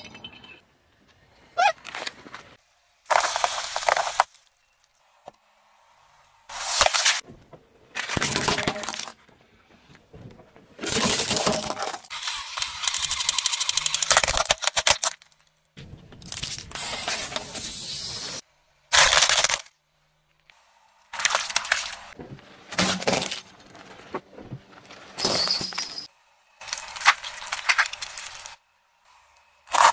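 Car tyre rolling over objects and crushing them, heard as a string of short separate clips that start and stop abruptly: plastic cracking and breaking. Near the end, plastic bags of jelly are squashed under the tyre.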